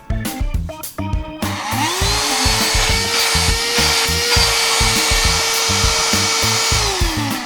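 Small cordless handheld vacuum cleaner switched on about a second and a half in: its motor whines up to speed, runs steadily with a rush of air, then winds down near the end. Background music with a steady beat plays throughout.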